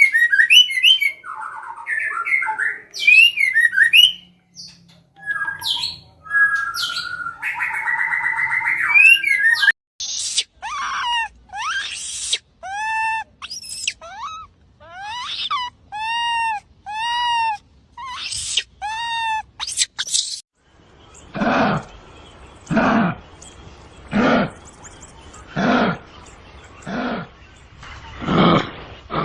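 A run of animal calls: bird chirps and whistles, then a string of short arched calls repeated about once a second. After that come six evenly spaced, lower and rougher calls.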